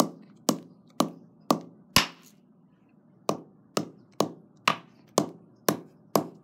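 Hammer blows smashing earbud pieces on a concrete floor: a run of sharp hits about two a second, twelve in all, with a short pause after the fifth.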